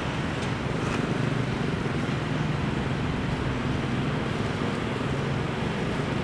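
A steady low hum over a constant rumbling noise, with no clear animal calls standing out.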